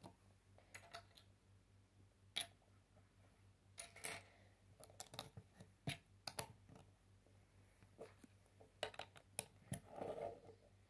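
Plastic LEGO bricks faintly clicking and tapping as they are handled and pressed onto a small model: a scattered series of short clicks, with a few quick ones together about five seconds in and more near the end with some soft handling noise.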